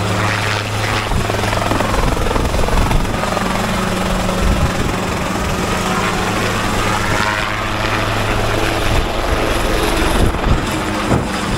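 Heli-Sport CH-7 Kompress ultralight helicopter lifting off and hovering close by, its rotor blades beating and engine running steadily and loudly.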